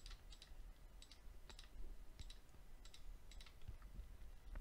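Computer mouse button clicked repeatedly as checkboxes are ticked: a string of faint, sharp clicks about every half second to a second, many in quick press-and-release pairs, over a faint low hum.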